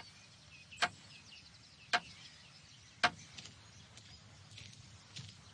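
Three sharp chopping strikes about a second apart, like a hand tool working the ground, with faint bird chirps behind.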